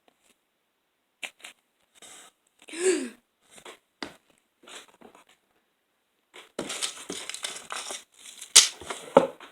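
Plastic packaging being handled and torn open. It starts as scattered short rustles, turns to continuous crinkling and tearing about two-thirds of the way through, and ends with a couple of sharper, louder rips.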